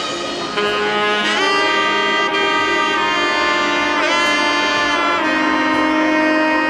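Background music with long held notes, changing pitch about a second in and again around four seconds in.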